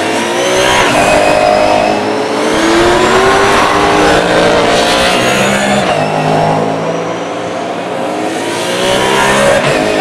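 Superstars Series touring race cars accelerating out of a chicane one after another, several loud engines overlapping, each rising in pitch as it revs up.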